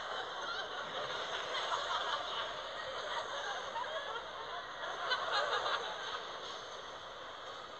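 Echoing hubbub of many children's voices in an indoor swimming pool hall, with snickering laughter among them.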